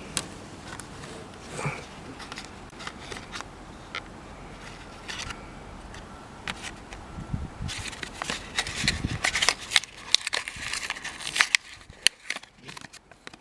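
Plastic clicks and scraping as a brake light bulb and its socket are handled, the 2057 bayonet bulb pushed and turned out of the socket. The clicking turns into a dense rattle for a few seconds near the end.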